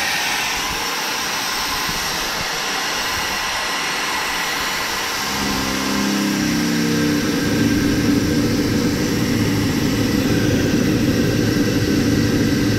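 Compressed air hissing steadily through a Peterbilt air-leaf suspension leveling valve as its arm is moved, shifting air in the suspension air bags. About five seconds in, a low, steady engine hum comes in beneath the hiss.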